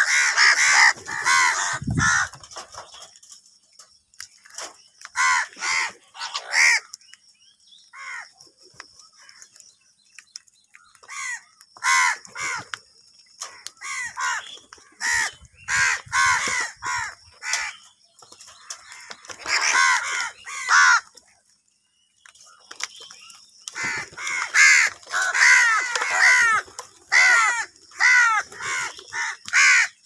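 A flock of house crows cawing: bouts of rapid, harsh caws from several birds calling over one another, broken by short pauses, as they crowd around food.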